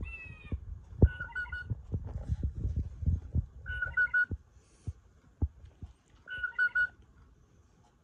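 Singing bird wall clock playing its recorded blue jay call. A falling call at the start, then a short three-note call repeated three times, about two and a half seconds apart, with a few low knocks in the first half.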